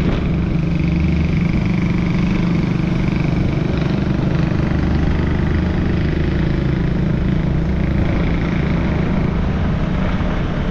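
Motor scooter engine running steadily while riding, holding an even pitch with road and wind noise underneath.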